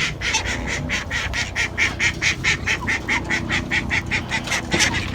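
Ducks quacking in a fast, even series of short, harsh quacks, about five a second.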